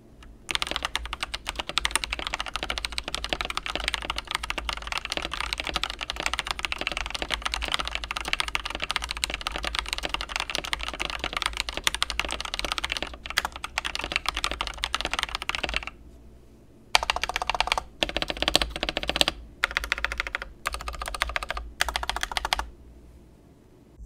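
Typing on a TM680 mechanical keyboard in its stock, unmodded build: Akko CS Rose Red switches on an aluminium plate, plate-mounted stabilizers and Cherry-profile keycaps. Fast, continuous key clacks run for about sixteen seconds, then come several short bursts of typing with pauses between them.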